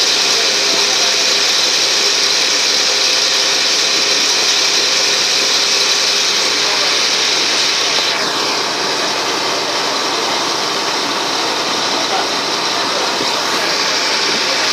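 Ferry boat's engine running steadily under way, with a constant rushing noise and no change in pace.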